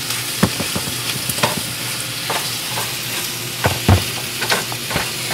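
Peppers sizzling in a metal frying pan with a steady hiss while a wooden spoon stirs them, scraping and knocking against the pan several times. The loudest knock comes about four seconds in.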